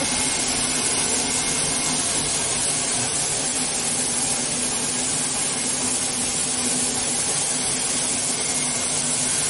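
High-speed tape slitting and rewinding machine running steadily as it slits paper tape into narrow strips: a constant rushing noise over a low, even hum.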